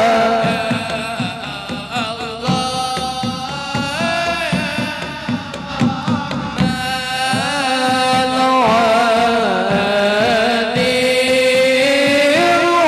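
Two men singing an Arabic devotional chant, the melody winding up and down with ornaments, over regular low drum strokes.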